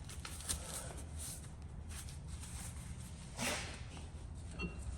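Faint scrapes and a few clicks of metal tools against a car's brake caliper as its piston is pressed back for new pads, over a low steady hum.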